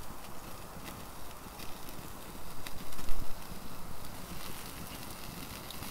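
Wood campfire crackling with scattered sharp pops beneath a steak grilling on a wire grill basket, over a low rumble, with a louder dull thump about three seconds in.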